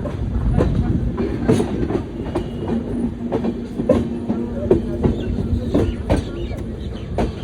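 Train running on the track: a steady rumble and hum with the wheels clacking sharply over rail joints, at uneven intervals of about half a second to a second.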